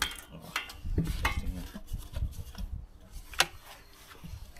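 A plastic petrol jerrycan with a flexible spout being handled and readied to pour: a few knocks and clicks of plastic, the sharpest about three and a half seconds in.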